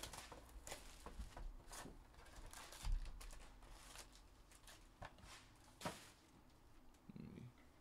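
Faint rustling and tapping as a cardboard hobby box of trading cards is handled and its foil-wrapped packs are taken out and stacked, with a dull thump about three seconds in.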